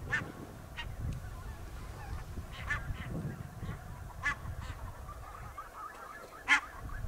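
Wild goose honking: about eight short, separate calls spaced out over several seconds, the last one the loudest, from a goose flying in overhead.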